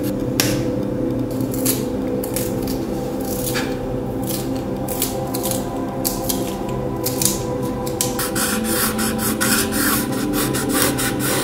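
Scratching of a coloured pencil tracing along a knife blade onto a wooden board, with a small handheld pencil sharpener shaving the pencil partway through, over steady background music.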